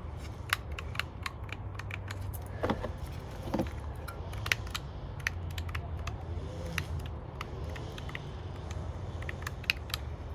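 Irregular small plastic clicks and light rattles from handling a car door's window and lock switch assembly, over a low steady hum.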